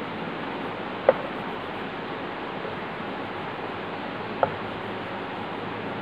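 Steady hiss with two short, sharp taps, about a second in and again some three seconds later.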